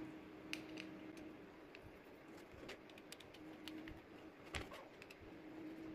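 Faint, scattered clicks and small scrapes of a small screwdriver working the tiny screws out of the inside of an SK750 wireless mic receiver's plastic housing.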